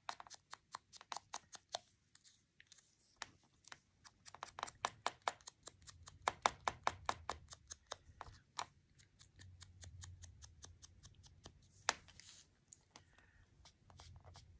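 Foam finger dauber tapped quickly against the edge of a die-cut paper leaf to ink it: light, rapid taps of about six a second in runs, with short pauses and a single sharper click near the end.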